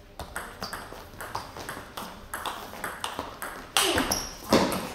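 Table tennis rally: the celluloid-type ball clicking off the bats and the table about three times a second, some strikes with a brief high ring. A louder sudden sound about four seconds in.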